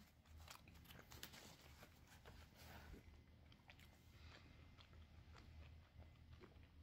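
Faint close-up chewing of a bite of pizza, with crisp crunching clicks that are busiest in the first three seconds and thin out after.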